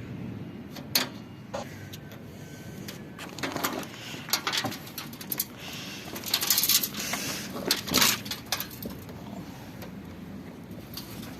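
Irregular clicks and knocks of hand tools on washing machine parts, with a stretch of scraping a little past the middle, as the machine is worked on during a bearing replacement.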